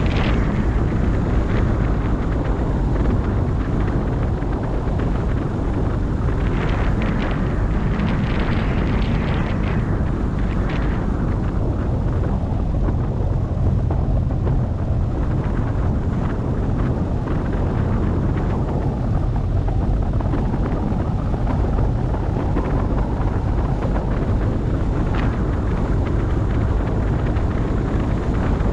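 A car driving along: a steady low rumble of road and wind noise, with a few seconds of extra hiss about a quarter of the way in.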